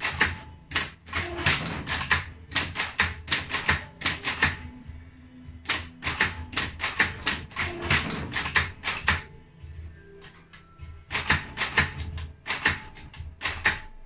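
A 1963 Triumph Electric 31 electromechanical typewriter being typed on quickly: uneven, rapid key strikes, with a steady low hum from its running motor underneath. The strikes thin out for about a second and a half just past the middle, then resume.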